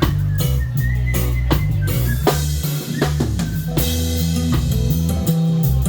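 Live band playing an instrumental stretch of a song: a drum kit keeping a steady beat over a deep, moving bass line.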